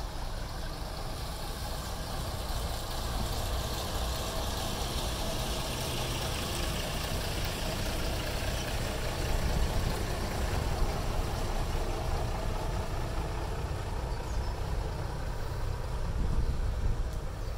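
Diesel engine of Queensland Rail 1900 class railmotor RM1901, a steady running drone that slowly grows louder as the railcar approaches and is loudest as it passes close by near the end.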